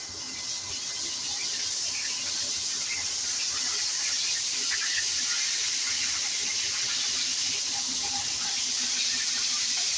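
Black bass frying in a pot of hot grease: a steady sizzle that grows over the first couple of seconds and then holds.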